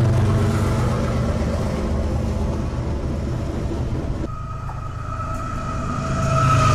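Diesel freight locomotives running by: a CSX locomotive passes close with a steady engine rumble and the noise of the train. After a sudden change about four seconds in, Union Pacific diesel locomotives approach, and a steady high tone over the engine drone grows louder near the end.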